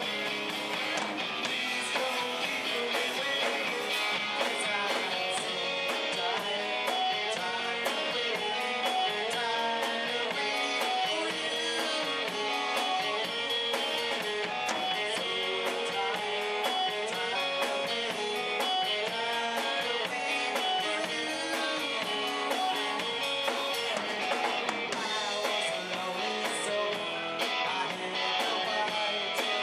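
Live rock band playing: electric guitar, electric bass and drum kit, with steady drum beats under the guitar lines.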